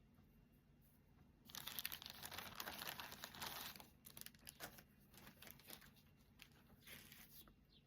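Packaging crinkling as it is handled and opened. A dense spell of crinkling starts about one and a half seconds in and lasts about two and a half seconds, followed by scattered lighter crinkles.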